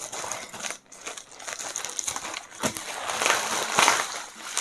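Packaging crinkling and rustling as it is torn and pulled open by hand, in a run of irregular crackles that grows busier about halfway through.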